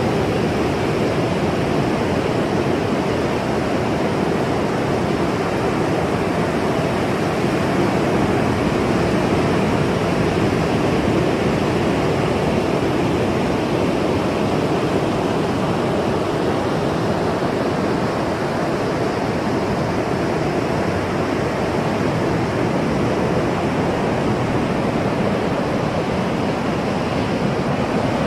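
Ocean surf making a steady, even roar of rushing water, with barely any rise and fall between waves.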